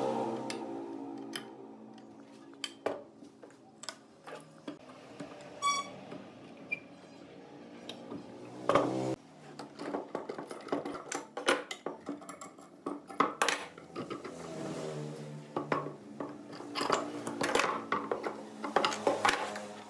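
Metal clamps and hand tools clinking and knocking against a wooden clock frame and workbench, in many short knocks that come thick from about halfway on. There is one brief metallic ping before that, and a small motor whir that dies away in the first second or two.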